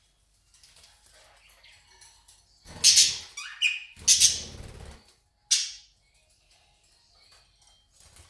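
Pet budgerigars chirping faintly, with three loud, short, harsh noises close by near the middle.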